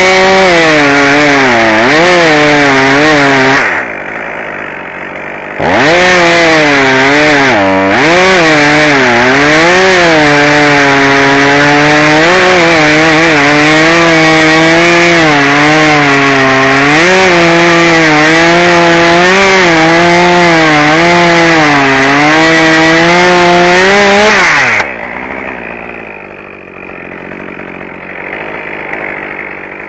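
Two-stroke chainsaw at full throttle cutting wood, its engine note dipping and recovering under the load. It eases off to a quieter idle for about two seconds near the start, cuts again for about nineteen seconds, then drops back to idle near the end.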